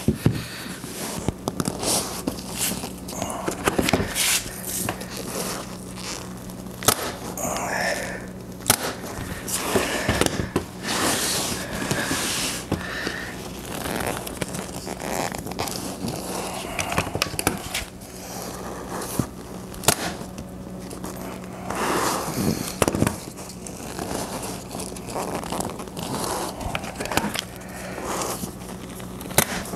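Vinyl seat cover being handled and stretched over a plywood seat board: irregular rustling, crinkling and scraping with scattered sharp clicks, and a few louder single clacks typical of an electric staple gun driving staples, one near the end. A faint steady low hum runs underneath.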